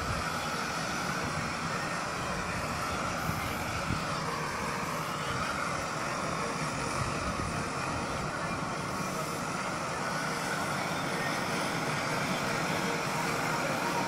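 JCB backhoe loader's diesel engine running steadily while the backhoe digs, its note dipping briefly and recovering about four seconds in.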